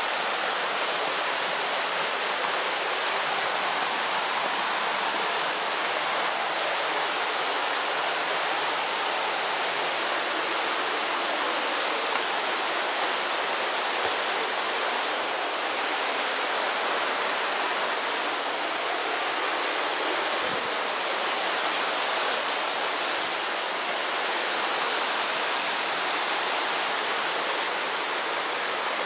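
A river's water rushing steadily over its stony bed, in an even, unbroken wash of noise.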